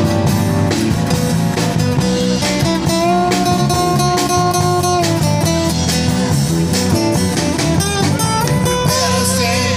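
Live band playing an instrumental passage: strummed acoustic guitars and a drum kit under a lead melody of long held notes.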